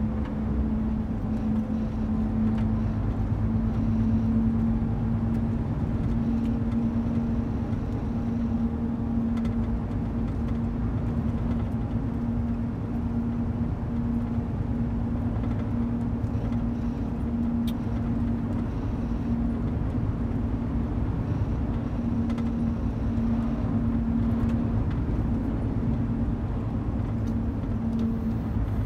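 Car driving along a road, heard from inside the cabin: a steady engine hum with low tyre and road rumble.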